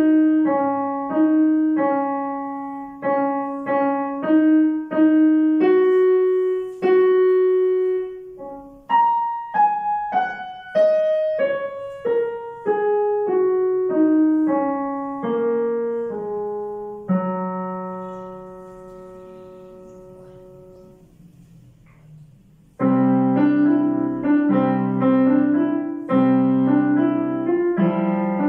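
A child playing a digital piano: a melody in single notes, then a falling run, a long held note that dies away for several seconds, and steady chords with lower notes starting about 23 seconds in.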